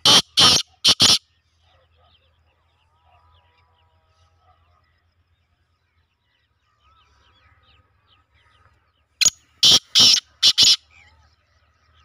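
Male black francolin calling from its cage: two bouts of loud, harsh, clipped notes, about four at the start and about five roughly nine seconds in. Faint chirping of other birds in between.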